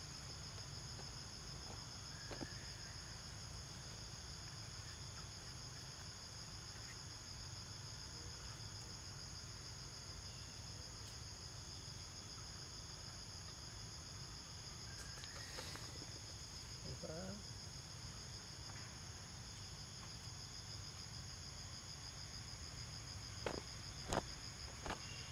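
A steady, high-pitched insect chorus drones on without a break. A few sharp clicks come near the end.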